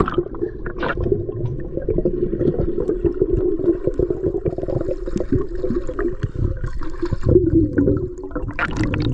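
Muffled sound of a camera held underwater: water rushing and bubbling against the housing, with a steady low wash and constant crackling clicks. Sharper splashes come near the end as the camera nears the surface amid bubbles.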